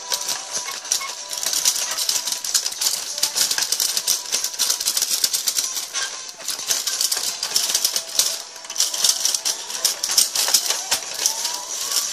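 Rock'em Sock'em Robots fighting: a rapid, continuous clatter of hard plastic as the robots' arms jab and strike each other's bodies.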